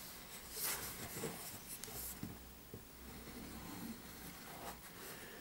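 Faint handling noise of hands turning a model ship's wooden building board: scratchy rubbing of skin on wood in the first two seconds, with a few light knocks as the board is set down and shifted.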